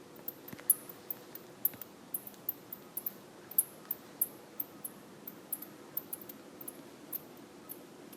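Oriental free-tailed bat giving its echolocation calls: a string of short, very high-pitched chirps, each dropping quickly in pitch, about three a second at irregular spacing and varying in loudness. These are the calls this large bat makes while hunting insects in flight, low enough for human ears to hear, unlike those of most bats.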